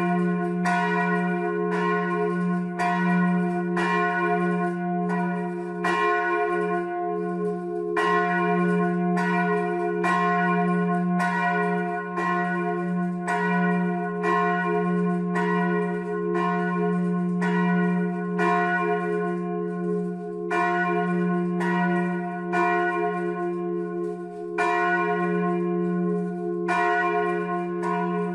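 Church bells ringing the midday peal: a large F3 bell swinging in full peal, giving a continuous deep ringing tone, while two smaller fixed bells tuned to C4 and E4 are struck by hammers in a chime. The strikes come about one and a half to two a second, with a few brief gaps.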